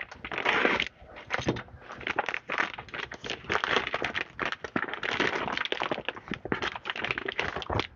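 Plastic poly mailer bag crinkling as it is slit with a utility knife and then pulled open by hand: a dense, continuous crackle of many small clicks.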